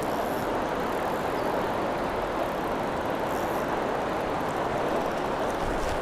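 Steady rushing of a fast river running high.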